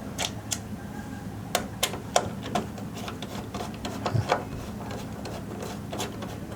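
Screwdriver working the small screws of the M.2 heatsink shield on a PC motherboard: irregular light metallic clicks and ticks.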